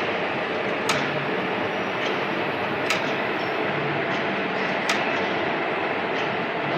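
Steady machine running, with a sharp click repeating about every two seconds.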